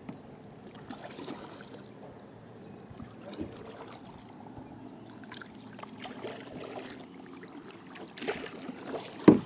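Water trickling and lapping around a kayak, with small knocks as gear is handled aboard, and one sharp knock against the hull near the end.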